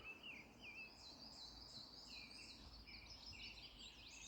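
Faint birdsong in woodland: several birds singing short, warbling, chirpy phrases, sparse at first and busier from about a second and a half in.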